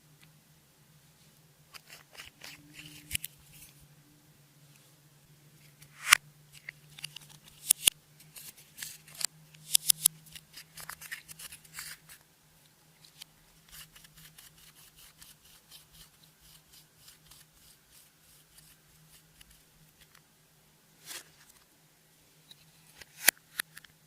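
Clear slime being worked by hand: scattered sticky clicks and small pops in clusters, with quieter crackling between.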